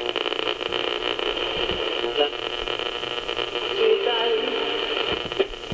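Small speaker of a 1980s JC Penney multi-band clock radio playing static and hiss, with faint, broken-up broadcast voices coming through.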